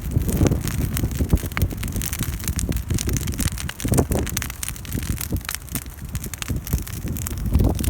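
Campfire burning, its wood crackling with many irregular sharp snaps, over a low rumble of wind on the microphone.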